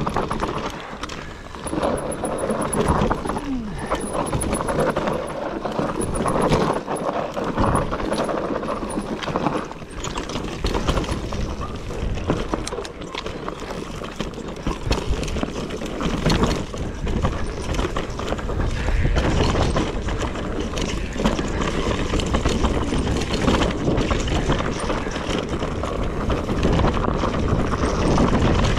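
Riding noise from a Whyte E180RS electric mountain bike on a rough dirt and gravel trail: tyres crunching over stones, with frequent rattles and knocks from the chain and frame over bumps. Wind buffets the microphone throughout.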